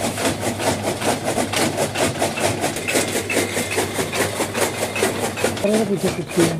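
Fodder chaff cutter with a spoked flywheel, its blades chopping green fodder in a rapid, even rhythm over a steady hum. The chopping stops near the end.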